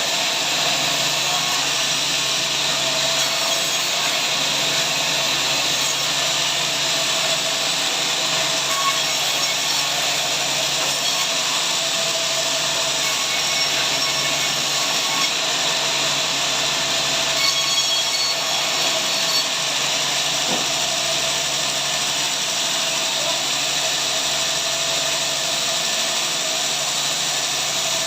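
Power saw running steadily as it cuts through a large log, giving a continuous, even cutting noise.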